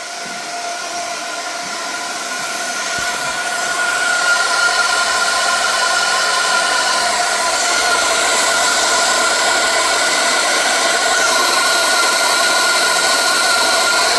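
Steam escaping from a steam-heating system with a steady hiss and a whistle, growing louder over the first few seconds and then holding.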